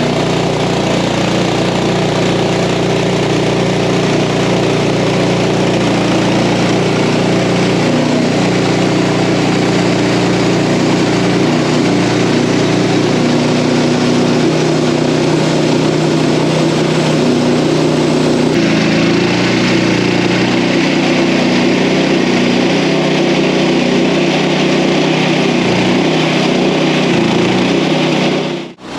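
Engine of an OS31 portable band sawmill running steadily. Its note shifts about 18 seconds in.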